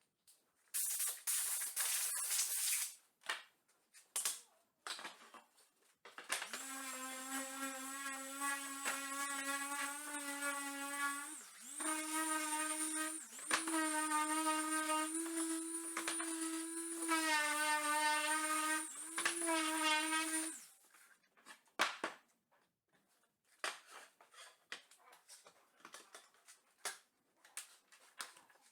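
CNC router working in wood, a steady motor whine with a thin high whine above it, its pitch stepping up and down between a few levels as the machine changes speed. Short hissy bursts come before it starts, and faint clicks and rustles follow once it stops.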